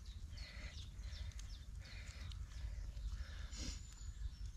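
Birds calling in short, scattered chirps over a low, steady rumble.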